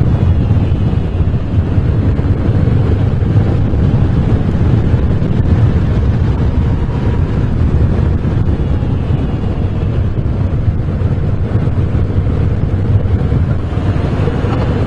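Moto Guzzi V7 Special's 750 cc transverse V-twin running steadily under way, with wind rushing over the microphone.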